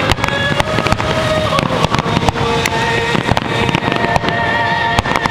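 A fireworks display going off in a rapid, irregular run of bangs and crackles, with steady held tones sounding underneath.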